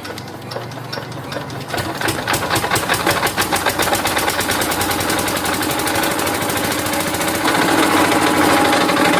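Small motor of a homemade rice-cutting machine starting up. A rapid clatter begins about two seconds in, quickens and then runs steadily, and gets louder near the end.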